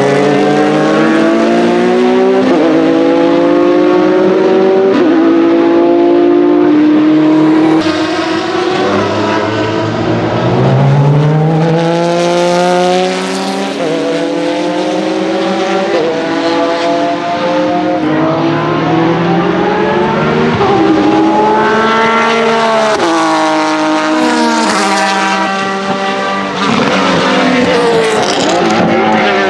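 Porsche 996 GT3 racing cars' 3.6-litre flat-six engines at high revs, the note climbing through each gear and dropping at every shift, with downshifts on corner entry. Near the end more than one race-car engine is heard at once.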